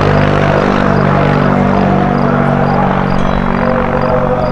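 Sports car engines running, a steady low engine drone with a higher engine note coming in near the end.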